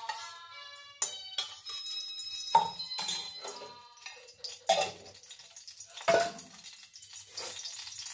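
Stainless steel kitchen vessels knocking and clinking as they are handled and set down: about five sharp knocks a second or so apart, each leaving a short metallic ring.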